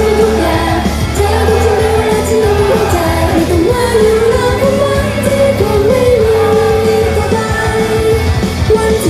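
Idol-pop song performed live: female voices singing a melody into microphones over pop backing music with a steady bass, through the stage speakers.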